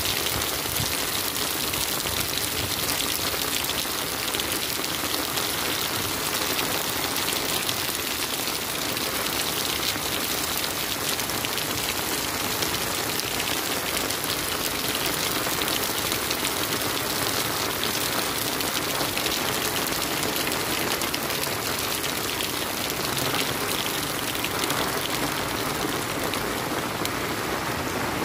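Steady rain falling on a wet paved street and sidewalk, an even hiss without a break.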